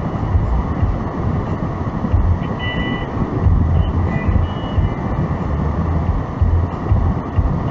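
Steady low road rumble and noise inside a moving car's cabin, with a few faint, brief high tones now and then.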